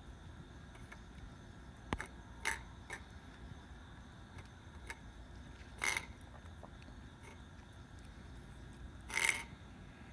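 A small clear food dish knocking and scraping on the paving as a calico cat eats from it: a few scattered clinks, the loudest and longest about six and nine seconds in, with a short ringing tone.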